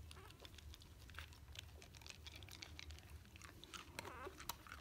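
Faint wet smacking and clicking from dogs' mouths, with a couple of tiny squeaks near the end.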